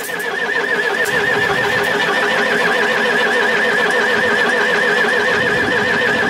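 Volvo BM 642 wheel loader's diesel engine running at a steady speed just after a cold start after months standing, with a high whine that wavers up and down several times a second.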